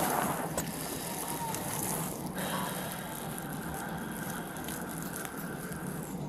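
Steady low cabin noise inside a patrol car with the engine idling, and a faint short electronic chirp about two and a half seconds in.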